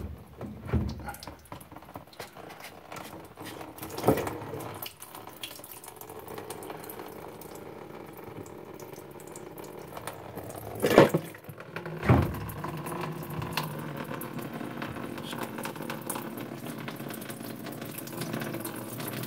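Water pouring out of a Whirlpool Duet front-loader's drain pump filter housing into a bucket as the filter trap is unscrewed. It is the water left standing because the clogged drain filter kept the washer from draining (its F-02 error). The stream settles into a steady splash after about five seconds, with a few knocks from the plastic trap being handled.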